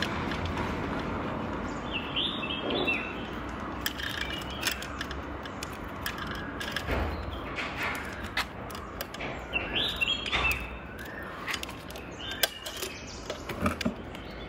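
Bicycle chain being handled and threaded onto a chainring: scattered light metallic clicks and knocks, busiest in the second half. Birds chirp in short bursts several times in the background.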